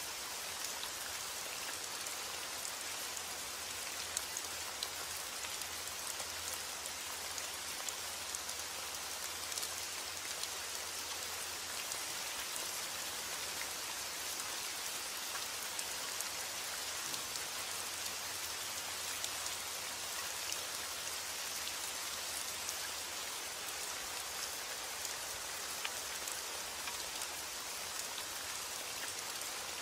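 Heavy rain falling steadily on a window: an even hiss with scattered sharp ticks of single drops striking.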